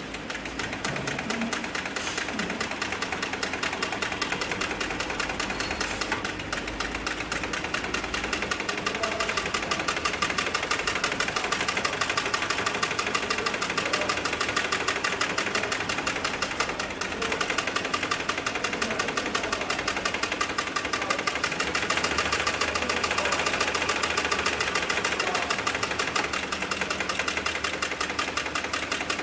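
HIGHTEX heavy-duty industrial sewing machine running at a steady speed, stitching through layered sling webbing, its needle and feed mechanism clattering in a fast, even rhythm over the hum of its belt-driven table motor.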